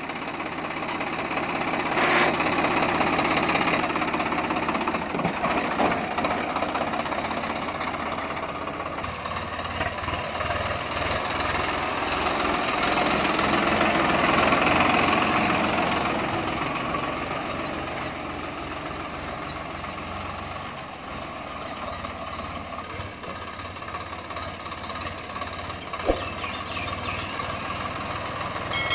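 Swaraj 744 FE tractor's three-cylinder diesel engine running steadily under way. It grows louder around the middle and then eases off. There is a single sharp click near the end.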